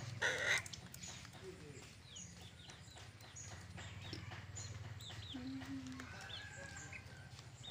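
Faint clucking of chickens, with short high peeps scattered through, over a low steady hum. A brief louder burst of noise right at the start.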